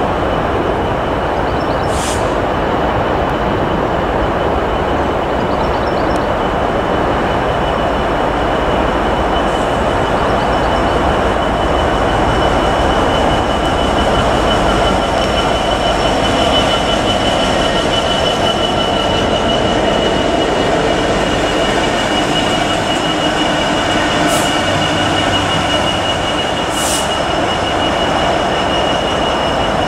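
Pair of GB Railfreight Class 66 diesel-electric locomotives passing, their two-stroke V12 engines running, with a steady high-pitched wheel squeal on the curving track. A few brief sharp clicks are heard near the end.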